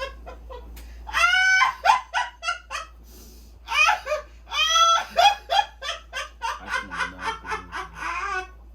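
A person laughing hard and high-pitched, in two bouts, the second a long run of rapid breathy ha-ha pulses.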